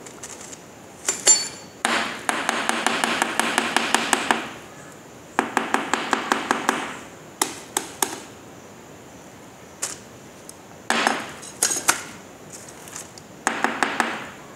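Rapid hard tapping and knocking of the long toner rod from a Kyocera TASKalfa 1800 drum unit, done to shake out the waste toner packed inside it. The taps come in quick runs of about eight a second, four runs of one to two and a half seconds, with a few single knocks between.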